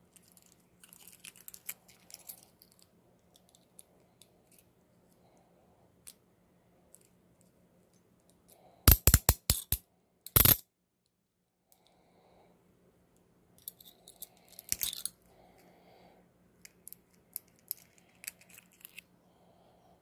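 Steel Hiatt-Peerless handcuffs being handled: small metal clicks and rustling, with a quick run of loud sharp clicks about nine seconds in and one more loud click a second later.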